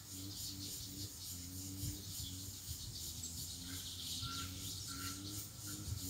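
Wild double-collared seedeaters (coleiro) singing faintly, with short whistled notes repeating about twice a second from about midway, over a steady chirring of insects.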